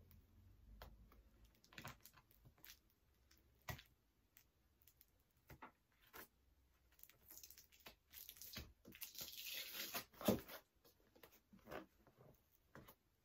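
Fingers picking at and peeling packing tape on a cardboard box: faint, scattered scratches and taps, with a longer spell of tearing and scraping in the second half and a sharper tap near its end.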